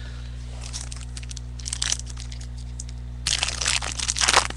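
Crinkling and tearing of a trading card pack's wrapper as it is handled and opened: short crackles about a second in, then a louder, longer crackling run in the last second and a half.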